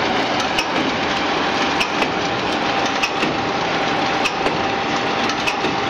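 Potato chip (French fries) production line machinery running: a steady mechanical noise with a faint constant whine and many scattered light clicks and rattles.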